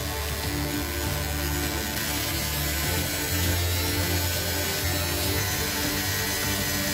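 Background music with sustained low notes over the steady whir of a handheld rotary tool engraving into the steel of an axe head.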